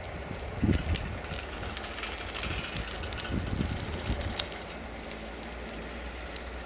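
Outdoor ambience: a steady low rumble with a few soft low swells, and faint bird calls.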